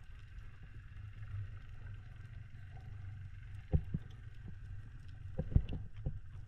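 Camera audio during freediving spearfishing: a steady low rumble of water moving around the camera, with one sharp knock about halfway through and a quick run of four knocks near the end.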